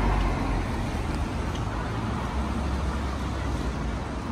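Steady road traffic noise from a rain-wet city street, an even wash of sound over a low rumble.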